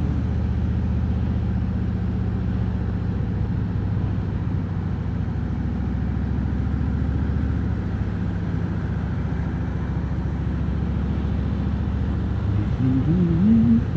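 Harley-Davidson Road King Special's V-twin engine running steadily, a low even pulsing note that shifts slightly about eight seconds in. Near the end the rider starts singing over it.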